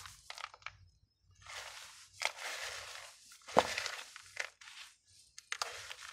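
Bare hands stirring and squeezing a gritty potting mix of soil, perlite, volcanic stone and expanded clay in a plastic basin: crunching, gravelly rustles in irregular bursts, the sharpest crunch a little past halfway.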